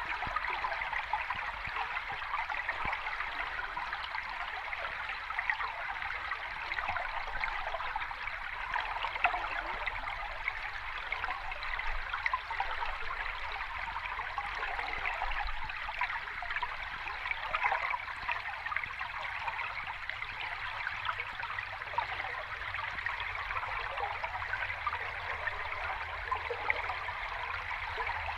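Running water of a small cascading stream, a steady splashing trickle with no lulls.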